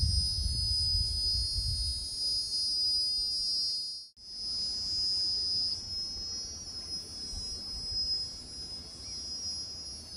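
A steady, high-pitched insect drone, several shrill tones held together. Wind rumbles on the microphone for the first few seconds, the sound cuts out for a moment about four seconds in, then the drone carries on.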